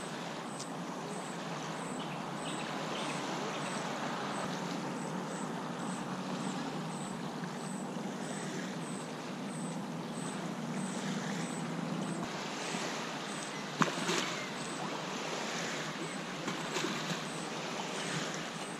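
Small waves lapping on a lake's sandy shore, a steady wash of water with a low steady hum beneath it. A single sharp click stands out about two-thirds of the way through.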